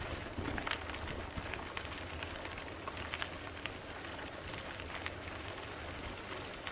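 Mountain bike rolling over a dirt trail: a steady rush of tyre and wind noise, with scattered small clicks and rattles.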